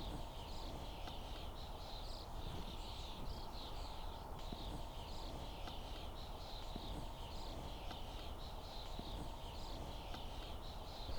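Birds singing: a dense run of short, repeated chirps and trills over a low, steady background rumble.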